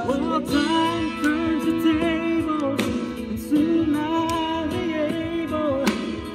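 Karaoke: a man singing a sustained, wavering melody into a handheld microphone over a music backing track.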